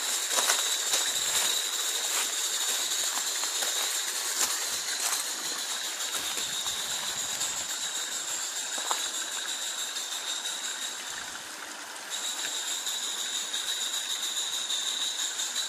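Edenhouse 'Ralph' coal-fired live steam model locomotive running on garden track, its steam hissing steadily with a high whistling tone. The tone fades about ten seconds in and comes back sharply two seconds later. Light clicks run through it.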